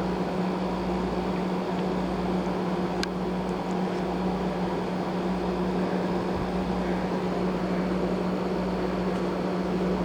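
A steady, even hum with hiss, like a fan or other running appliance, and one faint click about three seconds in.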